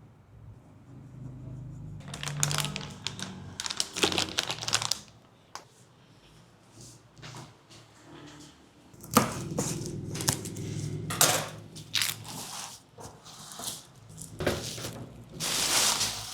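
Packaging crinkling and rustling as it is handled, in irregular bursts with a few sharper cracks, typical of unwrapping PC components from their plastic and boxes.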